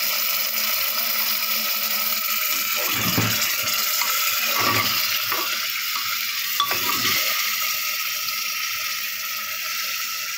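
A ladle stirring rice and water in an open pressure cooker, with a few scrapes and sloshes about three to seven seconds in, over a steady hiss.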